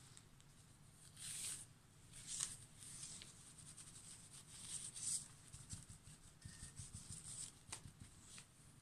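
Faint rubbing and swishing of a cloth wiped over a painted wooden board in short, irregular strokes.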